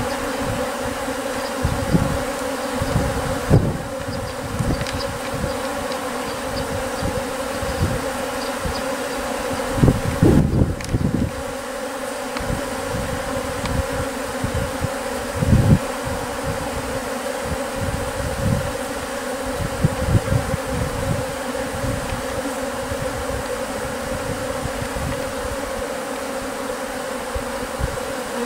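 A swarm of Japanese honeybees buzzing steadily in the air: the mass hum of a swarming colony gathering on a Kinryōhen orchid lure. Irregular low thumps come through the hum, the strongest about ten seconds in and again about fifteen seconds in.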